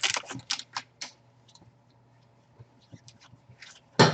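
Trading cards being handled and flicked through: a quick run of light clicks and ticks in the first second, scattered faint ticks after, and one sharp snap near the end.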